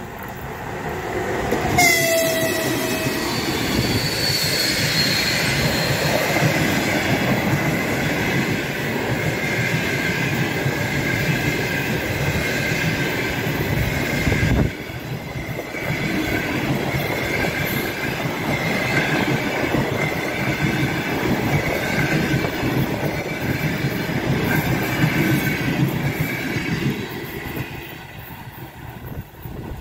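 Electric passenger train passing close by on a curve: a horn blast sounds about two seconds in as the EP1 electric locomotive nears. Then the coaches rumble past with a high squeal of wheels on the curve, and the sound fades near the end as the last coach goes by.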